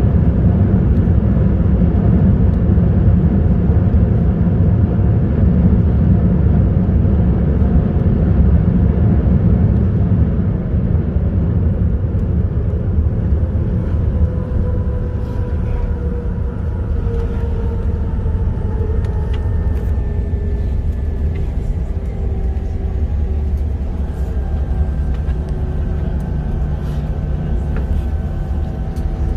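Cabin noise of a Boeing 787 airliner rolling out on a wet runway after landing: a loud, steady low rumble with engine whines that slowly fall in pitch as the aircraft slows.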